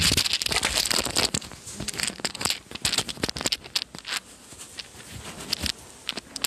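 Crackling, rustling handling noise of clothing being adjusted by hand at the chest. It comes in a dense run of crinkles and clicks for the first second and a half, then thins to scattered clicks.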